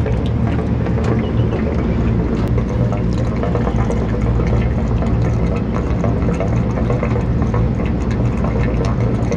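Steady low machine hum with rushing, gurgling liquid: flushing solvent being forced through an air-conditioner's condenser coil and piping.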